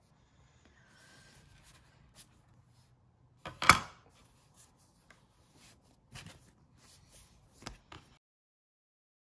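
Stainless steel bench scraper cutting through bagel dough and knocking against a bamboo cutting board: a few sharp knocks, the loudest about four seconds in, with soft handling sounds between. The sound drops out to silence near the end.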